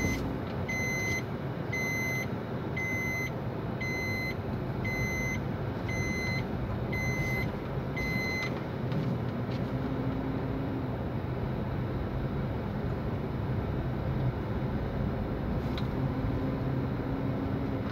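Electronic warning beeps from the Hyundai Verna's dashboard, a short high beep about once a second that stops about eight seconds in. Steady engine and road noise inside the moving car's cabin runs underneath.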